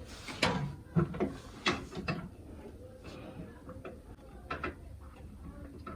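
Irregular metallic clicks and clanks of hand work on an industrial sewing machine's motor mounting, as the motor is being loosened and raised to tighten the belt.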